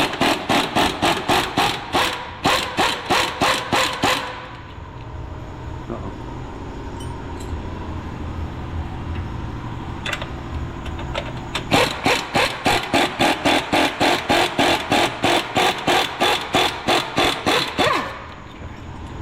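Power wrench working a suspension bolt on a control arm in two runs, first for about four seconds, then after a pause for about six seconds, each a rapid pulsing rattle of about six beats a second.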